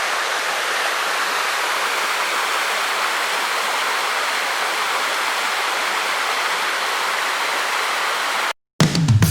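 Small waterfall's water rushing, steady and even, cutting off sharply about eight and a half seconds in; rock music starts just after.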